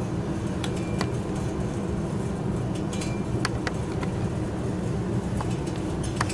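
Steady low background hum with a few light clicks and taps as the capped plastic sample tube and its temperature probe are handled and set in place.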